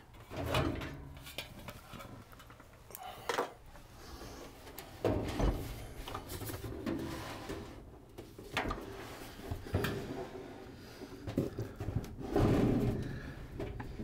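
Built-in convection microwave oven being worked loose and slid out of its cabinet opening: scattered knocks and clunks, with a longer scraping slide near the end.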